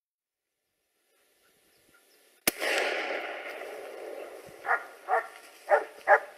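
A single gunshot about two and a half seconds in, its echo dying away over about two seconds. Then a hunting dog starts barking, short barks about two a second.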